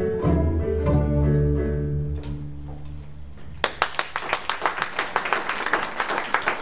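Student string orchestra of violins, cellos and double basses ending a piece on a held chord that dies away about three seconds in. About half a second later the audience breaks into applause.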